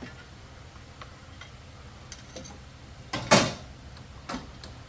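Scattered light clicks and one louder clack about three seconds in: hand tools and small parts being handled while fuel lines and the fuel pump are worked loose on a mower engine.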